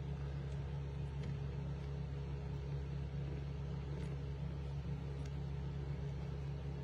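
A steady low hum that cuts off suddenly at the end.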